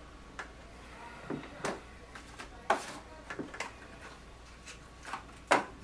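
Irregular light clicks and knocks, about seven over a few seconds, with a louder knock near the end.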